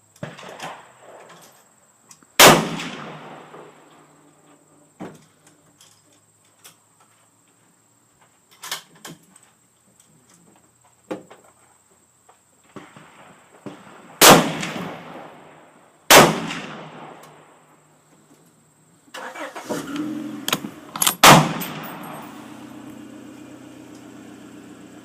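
Four gunshots with ringing, echoing tails: one about two seconds in, two close together in the middle and one near the end, with quieter clicks and knocks between them. A steady low drone starts shortly before the last shot and runs on.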